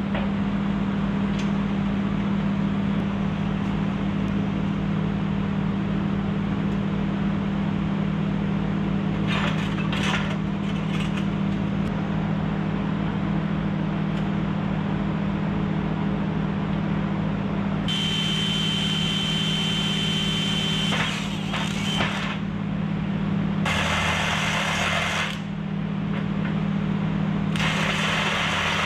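Cordless drill running in several short bursts, the last of them boring into steel angle iron near the end, over a steady low hum.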